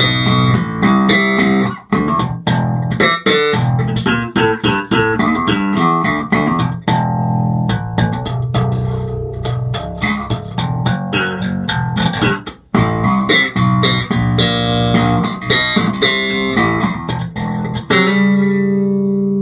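Electric bass guitar with Aguilar pickups in humbucking mode and an Aguilar preamp, played solo: a busy run of quick notes with sharp attacks. There is a brief break about twelve and a half seconds in, and the playing ends on a held note.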